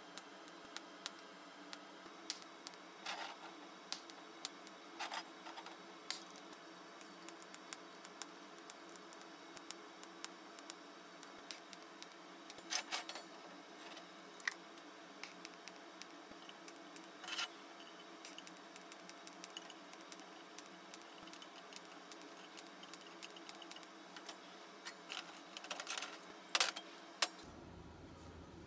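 Scattered light clicks, taps and small rattles of hand work on a metal can, irregular and unhurried, over a faint steady hum. A few clicks stand out louder, the sharpest near the end.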